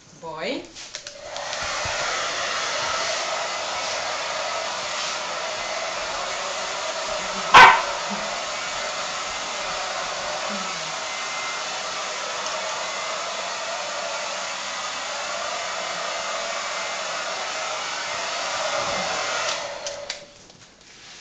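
Handheld hair dryer switched on about a second in, blowing steadily, and switched off shortly before the end. One short, sharp, very loud sound cuts through it about seven and a half seconds in.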